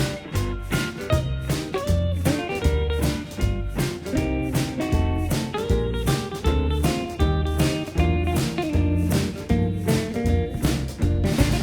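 Background music with a steady beat: an upbeat bluesy tune with plucked guitar, drums and bass.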